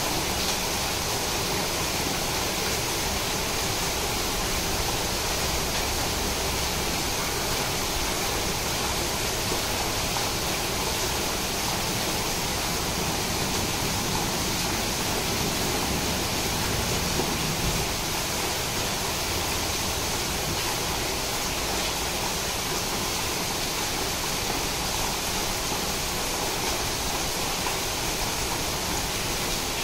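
Heavy rain pouring steadily onto floodwater and leaves, an even unbroken hiss.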